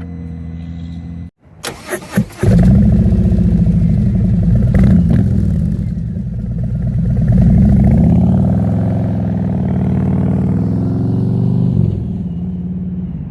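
Harley-Davidson V-twin with Vance & Hines Slasher slip-on mufflers, de-catted, with a Screaming Eagle high-flow air cleaner. It is cranked briefly by the starter, catches about two seconds in, and then runs loud with a deep, uneven idle. The engine speed swells and eases off once in the middle.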